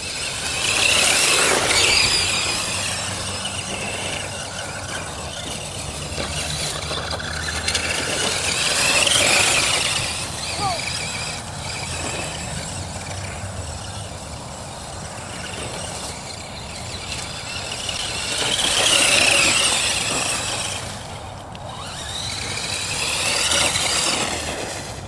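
Redcat Volcano EPX 1/10-scale electric RC monster truck's motor and drivetrain whining as it drives, the high whine rising and falling in pitch with several surges of throttle.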